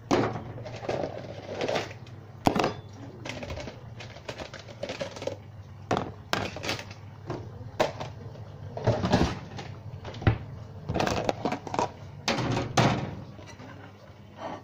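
Kitchen clatter as food is dished up: a plastic food container and a flat metal utensil knocking and scraping against a plate and the worktop, in a run of irregular sharp knocks with short scrapes between them.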